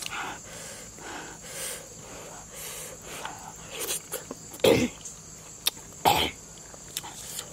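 A woman's sharp, breathy puffs in and out through the mouth while eating, about once a second, with a few wet mouth clicks; two louder puffs come a little past halfway.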